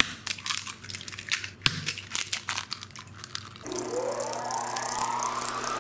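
Hen's eggs being cracked into a ceramic bowl: a run of sharp shell cracks, taps and crackles. About three and a half seconds in it gives way to the eggs being beaten with a fork in the bowl, a steady sound with a tone rising in pitch under it.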